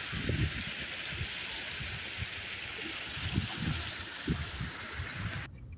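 Storm runoff flowing fast down a flooded ditch and spilling over a low concrete culvert wall: a steady rush of water, with irregular low thumps. It cuts off suddenly near the end.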